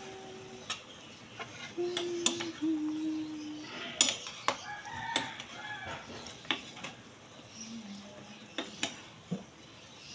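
A metal spoon and ladle clink and scrape against a wok as pancit noodles are served out. The loudest clink comes about four seconds in. A rooster crows in the background, one long call that drops in pitch partway through.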